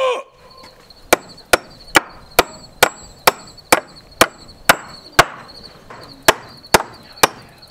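Claw hammer driving a nail into a pine 2x4 window-framing board, about fourteen evenly spaced blows at roughly two a second.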